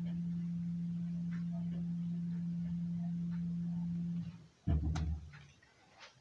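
A steady low hum that cuts off about four seconds in, followed by a single dull thump.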